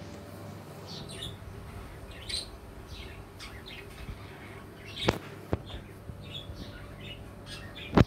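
Budgerigars chirping: many short, high chirps in quick succession. Sharp knocks come about five seconds in and again at the end.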